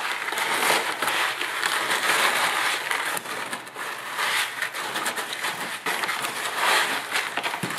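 A gloved hand mixing rock salt into wet Portland cement and aggregate in a plastic bucket: a steady run of many small gritty crackles and scrapes.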